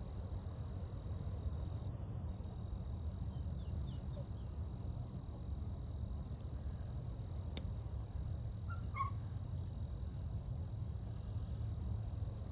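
Steady outdoor background: an insect trilling on one high, unbroken pitch over a low rumble, with a single sharp click about halfway through and a few faint short calls a little later.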